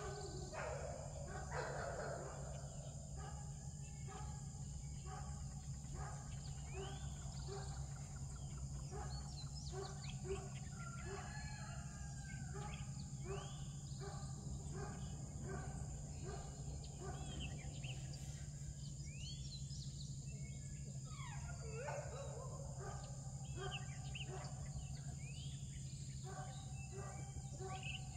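Mixed farm poultry calling: a string of short, evenly repeated calls, many quick rising chirps, and a long falling call about three-quarters of the way through, all over a steady low hum.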